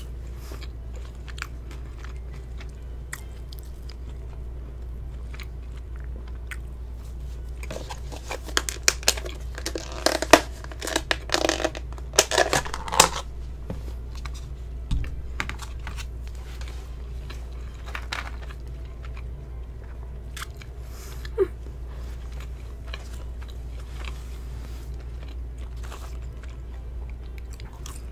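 Close-miked chewing and mouth clicks from a person eating a McDonald's hamburger and fries, with a spell of louder crackling and clicking about eight to thirteen seconds in, and one sharp click later on.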